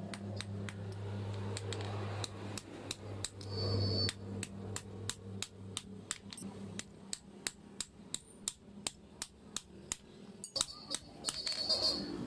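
Hand hammer striking metal in a steady rhythm, about three blows a second. A steady low hum runs under the blows and fades out about seven seconds in.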